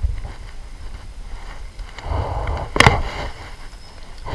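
Uneven low rumble of wind and handling on the microphone, with a short rustle a little after two seconds and one sharp knock just before three seconds, the loudest moment.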